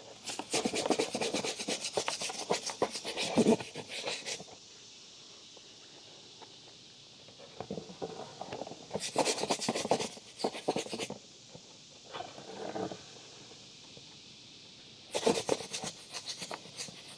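Rubbing and rustling handling noise in four bursts of a few seconds each, with quieter gaps between.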